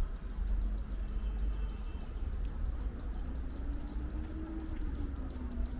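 Rapid, evenly repeated high chirping, a short falling chirp about three times a second, over a steady low street rumble. A low steady drone joins about three seconds in.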